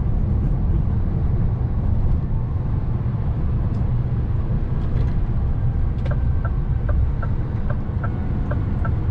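Steady engine and road rumble inside a lorry cab on the move. About two-thirds of the way through, a light, even ticking joins in, roughly three ticks a second.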